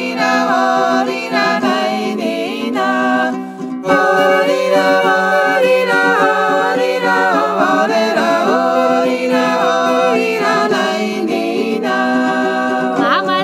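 Georgian folk song: several voices singing in harmony over a held low drone note, with a brief break about three and a half seconds in.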